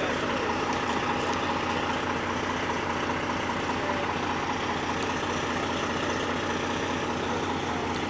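Idling emergency vehicle engines, dominated by a steady low diesel drone that holds level throughout.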